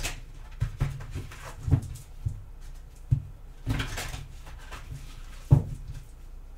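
A deck of tarot cards being shuffled by hand. There is a papery riffle about four seconds in and several dull knocks against the tabletop, the loudest near the end.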